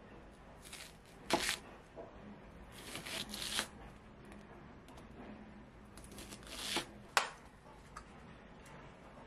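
Chef's knife slicing through an onion on a plastic cutting board: a few slow cuts, each a rasping crunch, with two sharp knocks of the blade on the board, the louder one about a second in.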